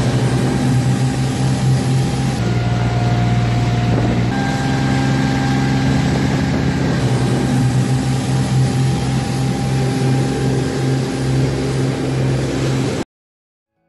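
Boat engine running steadily aboard a coast guard rescue boat, a low drone heard from its deck; it cuts off suddenly near the end.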